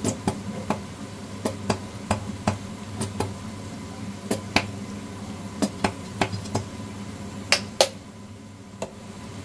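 A nearly empty chili sauce bottle being tapped and shaken over a wok to get the last of the sauce out: uneven sharp taps, about two a second, the loudest pair near the end, over a steady low hum.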